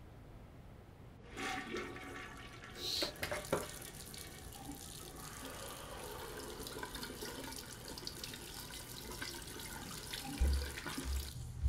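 A bathroom tap turned on with a few clicks, then water running steadily into the sink. A few low thuds come in near the end.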